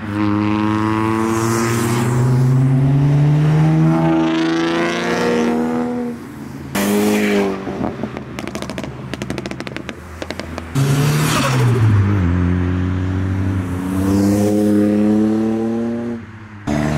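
Modified cars accelerating away one after another, their engines revving with the pitch climbing through each pull. Around halfway there is a sudden loud rush and then a rapid string of sharp pops; a little later another engine comes in loud and drops in pitch as it passes.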